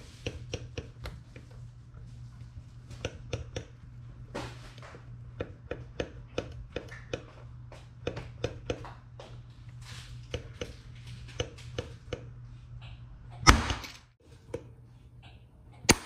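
Paintless-dent-repair lifter tool working a glue tab on a stainless steel fridge door: a run of short clicks and taps, a couple a second, as the handles are squeezed and released. Near the end comes one loud sharp snap as the glue tab lets go of the panel.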